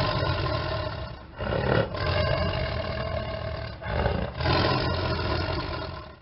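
Tiger roaring: one long, continuous roar that dips briefly about a second in and again about four seconds in, then stops abruptly near the end.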